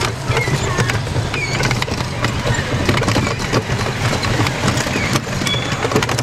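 A rickshaw rattling and knocking as it rolls along a street, over a steady low rumble, with some short high squeaks.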